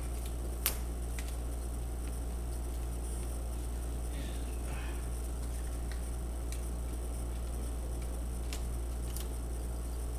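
Steady low electrical hum with a few light clicks and taps from handling the laptop's plastic parts and panel, the sharpest click a little under a second in.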